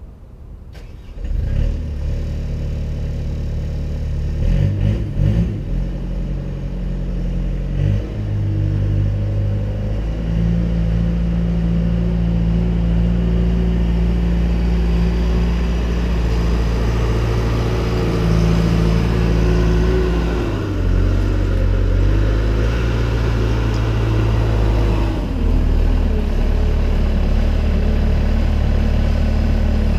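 Bobcat A300 skid steer's diesel engine starts about a second in and runs, its speed stepping up and down several times.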